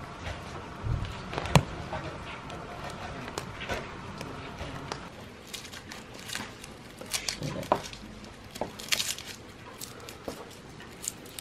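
Scattered small clicks and taps: a wood fire crackling in a sheet-metal stove, then a small knife clicking and scraping as garlic cloves are peeled, with papery skins falling onto a wooden board and into a steel bowl.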